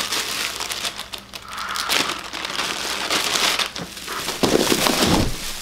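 Paper wrapping crinkling and rustling as it is handled, with many small crackles, and louder handling noise near the end.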